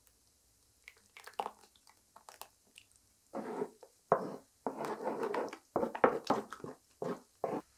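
Wooden spoon stirring a wet flour batter in a wooden dough trough. A few light knocks and clicks give way, about three seconds in, to a run of wet squelching strokes.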